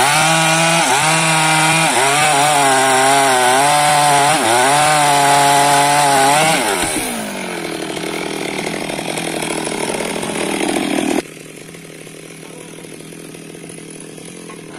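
Chainsaw running at high revs and cutting wood, its pitch dipping and recovering over and over under load. After about seven seconds it turns rougher and quieter, then drops off suddenly about eleven seconds in.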